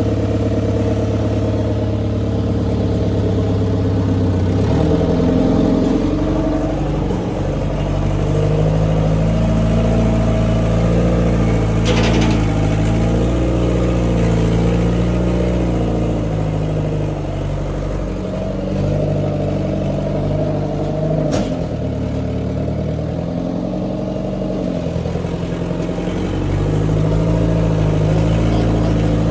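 Engine of the machine carrying a freshly repaired Gearmatic 9 winch, running under work and changing speed several times, with two sharp knocks, one near the middle and one about two-thirds of the way through.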